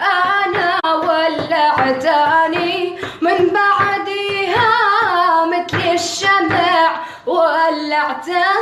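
A Syrian girl singing solo in a high voice, held notes wavering with vibrato and ornamented runs gliding between pitches, in phrases broken by short breaths.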